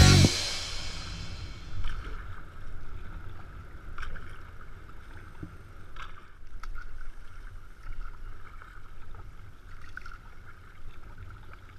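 Sea kayak being paddled: the paddle blades dip into the water about every two seconds, with the wash of water around the hull and a steady low rumble underneath. A sudden loud noise comes at the very start.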